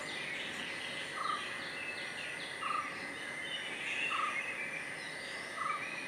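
Wild birds calling: a short note repeats about every second and a half, over scattered higher chirps and a steady faint high hum.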